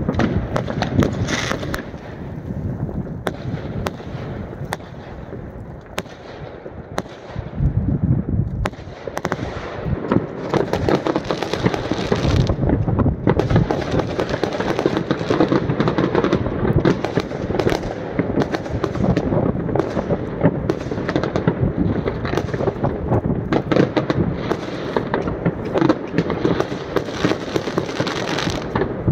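Many fireworks going off at once across a neighbourhood: a continuous dense crackle of bangs, pops and shell bursts. It thins out for a few seconds early on, then from about nine seconds in it is constant.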